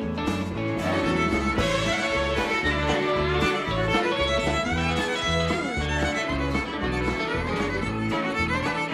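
Live rock band playing, with a fiddle taking the lead over bass and drums; the fiddle line is full of sliding notes.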